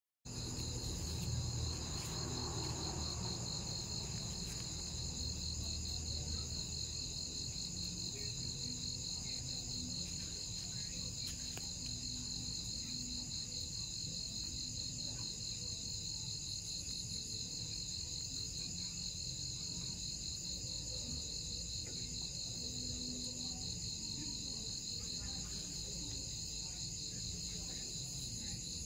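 Crickets trilling in a steady, high-pitched chorus with a fast pulse, unbroken throughout.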